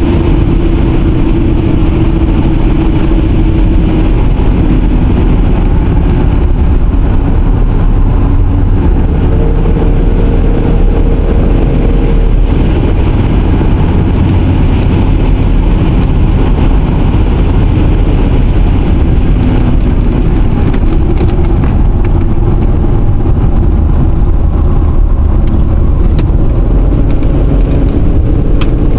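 Car interior road noise: steady low rumble of the tyres and engine while driving, the engine note drifting up and down a little.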